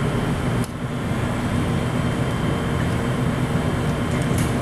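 Steady, loud fan-like whoosh and hum, with a brief dip about half a second in and a faint click near the end.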